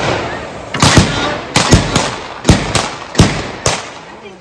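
Gunfire from a staged Old West shootout, with the reenactors' guns firing blanks: about six loud, echoing shots at uneven intervals, two of them close together.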